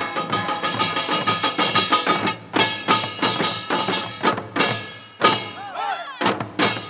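Korean traditional percussion ensemble (samul nori) playing: a kkwaenggwari small brass gong struck rapidly and ringing over janggu hourglass drums. The strokes are dense and fast for the first two seconds or so, then thin out to heavier accented hits, easing briefly near the end before picking up again.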